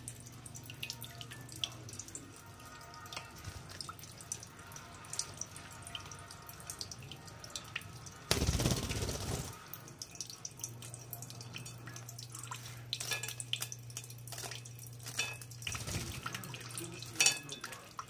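A thin stream of water from a tap trickling and splashing onto a tiled floor, with many small scattered drips and splashes. A faint low hum comes and goes, and a short loud rush comes about eight seconds in.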